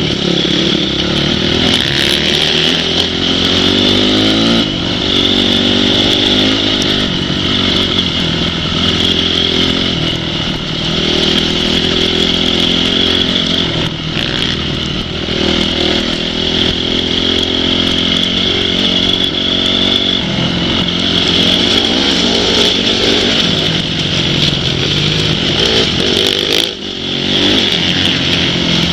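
Off-road motorcycle engine revving hard, its pitch rising and falling over and over as the throttle is worked, with a brief drop in level near the end.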